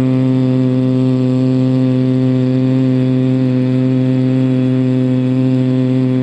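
A man humming one long, steady low 'mmm' on a single held pitch: the bee-like hum of Bhramari pranayama (humming bee breath), sustained through a slow exhale.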